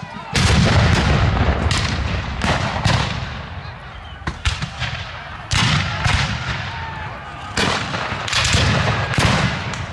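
Civil War-era black-powder guns firing in a battle re-enactment: about ten shots at uneven intervals, some in quick pairs, each trailing off in a low rumbling echo. The first, just after the start, is the loudest and rumbles longest.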